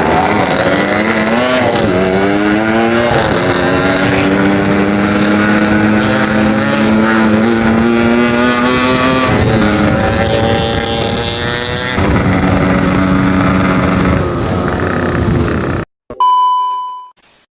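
Yamaha RX-King 135cc single-cylinder two-stroke with a packing-type aftermarket exhaust, riding under way: the engine note climbs, then holds and rises slowly, dropping at a gear change. Near the end the sound cuts off abruptly and a short electronic beep follows.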